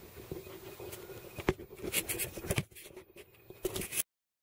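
Faint handling noises close to the microphone: scattered light clicks and scrapes over quiet background hiss, cutting off suddenly into dead silence about four seconds in.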